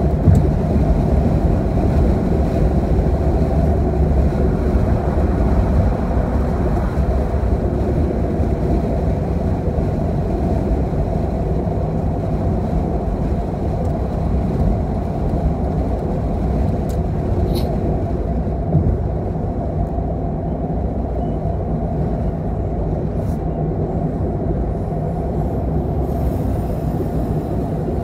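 Steady low rumble of tyre and engine noise heard inside a car cabin while driving at motorway speed.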